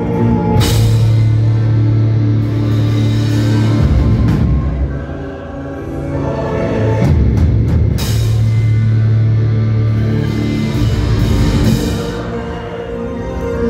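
A deathcore band playing live on electric guitars, bass and drums, with cymbal crashes about a second in and again about eight seconds in. The music eases briefly about five seconds in and again near the end.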